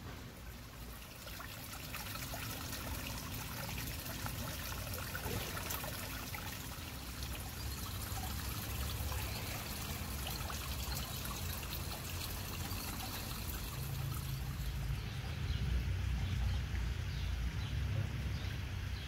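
Steady trickling water with a low rumble underneath; the hiss of the water eases and the rumble grows near the end.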